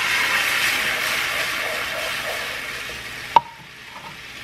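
Water hitting hot oil and fried chili powder in a pan, a loud sizzling hiss that slowly dies down as the sauce cools. About three and a half seconds in, a single sharp clink, and the sizzle drops to a faint hiss.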